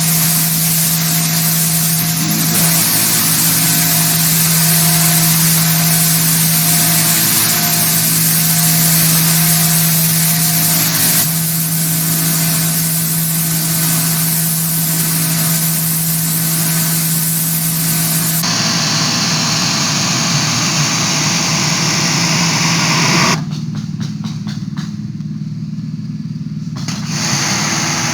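Sun Joe SPX3500 electric pressure washer running: a steady motor-and-pump hum under the hiss of the high-pressure water jet. The sound shifts suddenly about two-thirds of the way through, and the spray hiss drops away for a few seconds near the end before returning.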